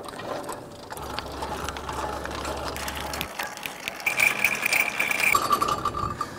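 Hand-cranked square-tube trailer jack being wound up under the front of a steel cattle chute, its gears clicking rapidly. About four seconds in a steady high whine joins the clicking, dropping to a lower pitch just after five seconds.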